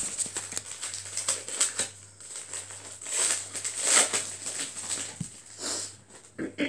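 Crinkling and rustling of trading-card booster pack wrappers and cards being handled, an irregular run of crackly rustles that is loudest about three to four seconds in.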